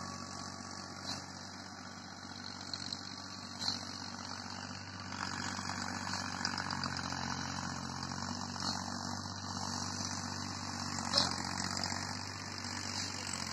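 A small farm tilling machine's engine runs steadily some way off, a low even hum. A hiss grows louder about five seconds in, and there are a few sharp ticks.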